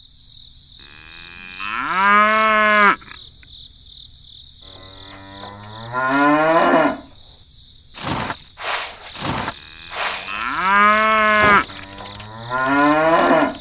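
Cow mooing four times, each moo about a second long, rising in pitch and then held, over a steady high-pitched whine. A few sharp clicks fall in the middle, between the moos.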